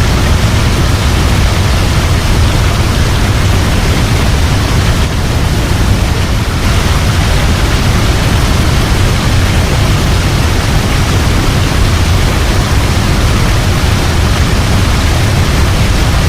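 Mountain waterfall: a loud, steady rush of falling water with a deep rumble under the hiss.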